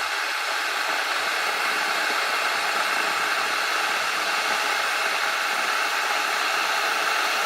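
Kettle heating water: a steady hiss and rumble that grows slightly louder.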